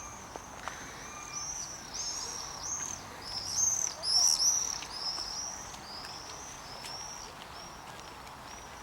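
A songbird singing a long series of high, arched, repeated notes, loudest about four seconds in and fading toward the end.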